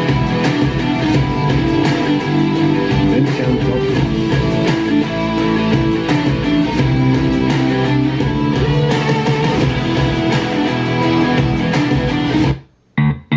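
Guitar-led music playing through Klipsch R-51PM powered bookshelf speakers. Near the end the track cuts off suddenly, and a different track starts in short stop-start bits.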